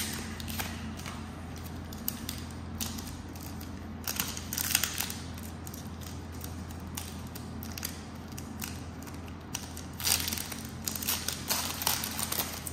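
Pokémon card booster pack being handled and torn open, its plastic sleeve and foil wrapper crinkling, with louder bursts of crinkling about four seconds in and again from about ten seconds on.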